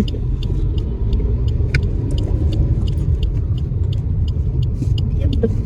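Steady low rumble of a car's engine and road noise heard inside the moving car's cabin, with faint small clicks and rattles scattered through it.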